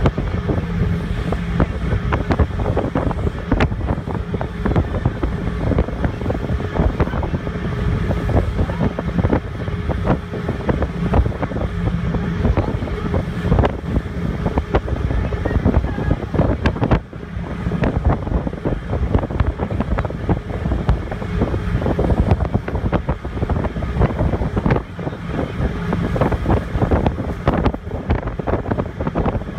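Wind buffeting the microphone on the open deck of a moving passenger ferry, over the steady drone of the ferry's engines and rushing water, with a brief lull about halfway through.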